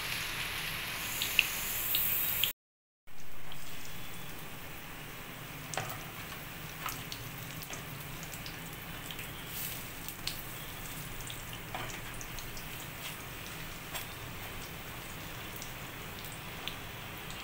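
Batter-coated green chillies deep-frying in hot oil: a steady sizzle with scattered pops and crackles. The sound cuts out for about half a second a little after two seconds in, comes back louder, then settles.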